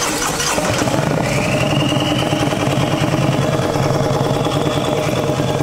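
Turbocharged Harley-Davidson Milwaukee-Eight 124 V-twin in a Street Glide, running steadily. A high whine rises about a second in and then holds.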